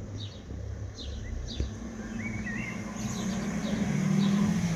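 Small birds chirping in short repeated descending notes, with a brief warbling phrase about two seconds in, over a low street rumble. A car engine hum comes in about three seconds in and grows steadily louder as a vehicle approaches.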